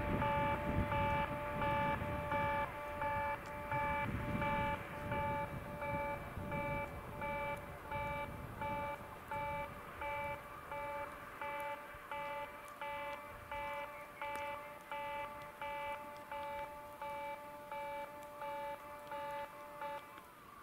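Railway level-crossing warning bell ringing in an even beat, a little under two rings a second, and stopping at the very end. Under it, the low rumble of the departing freight train fades away over the first several seconds.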